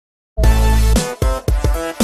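Intro music: it starts about a third of a second in with a long, low held chord, which about a second in breaks into short rhythmic stabs.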